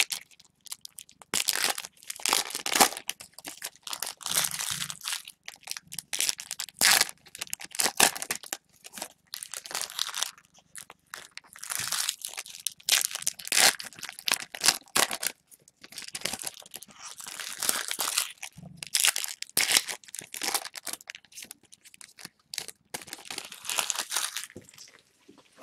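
Trading-card packaging being torn open and crinkled by hand, in irregular crackling bursts that die away near the end.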